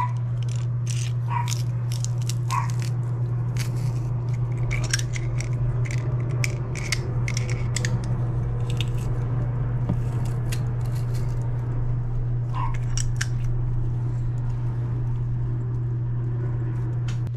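Metal garlic press crushing garlic cloves: repeated crunching and sharp clicks from the squeezed handles, over a steady low hum.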